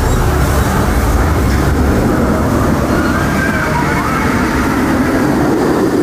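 The Incredible Hulk Coaster's steel roller coaster train running along its track, a loud, steady rumble.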